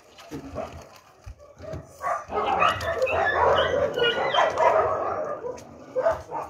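A large pack of dogs barking together in a dense, overlapping chorus, excited at being fed. It swells up about two seconds in and dies down again near the end.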